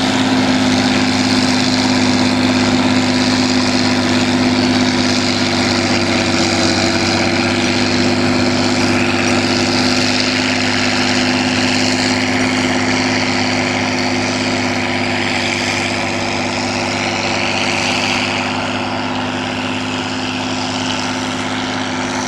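Rába-Steiger 250 articulated tractor's diesel engine running steadily under load as it pulls a wide seedbed cultivator and seeder; the sound eases off a little toward the end as the tractor draws away.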